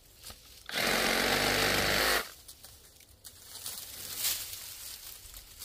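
Bauer 20V brushless compact reciprocating saw with a 9-inch Diablo pruning blade running in one short burst of about a second and a half, cutting through small brush. Faint rustling of branches follows.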